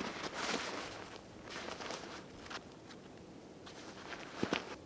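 Nylon stuff sack and hammock fabric rustling as they are handled in short bursts, with a sharp click about four and a half seconds in.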